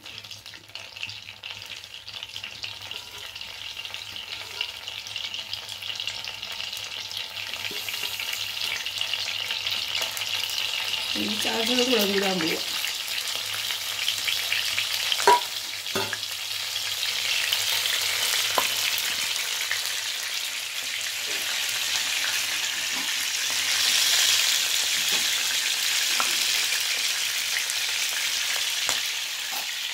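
Crushed false daisy and holy basil leaves and their juice frying in hot oil in a pan: a sizzle that grows steadily louder as the oil heats, with a few sharp clicks around the middle.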